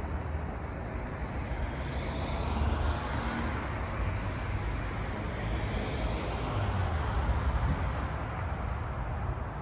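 Wind blowing through feather reed grass: a steady rushing rustle with a low rumble, swelling twice.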